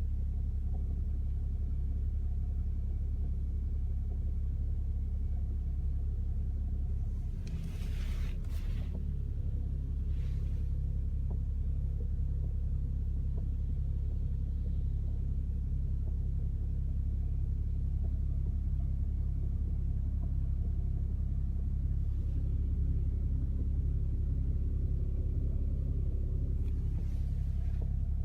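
2008 BMW E61 5 Series engine running at idle with a steady, low rumble. A few brief higher-pitched noises stand out: about eight seconds in, again about two seconds later, and near the end.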